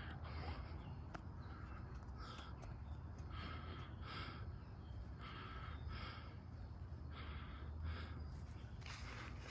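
Birds in a chicken coop giving short, harsh calls over and over, roughly one a second, over a faint low hum.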